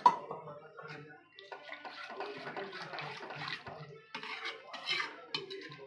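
A steel slotted ladle stirring a thin, watery masala gravy in an aluminium kadai, the liquid sloshing and swishing irregularly, with a sharp clack at the start.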